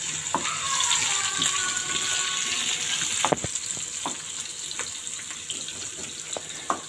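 Sliced onions sizzling in hot oil in a frying pan: a steady hiss, with a few sharp knocks and scrapes as a wooden spatula stirs them against the pan.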